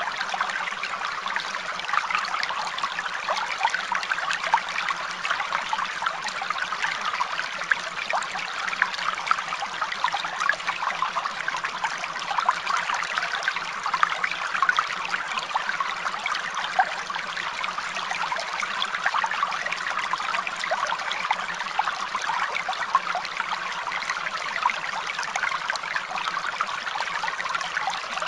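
Steady trickling of running water, with a continuous babbling crackle that does not change.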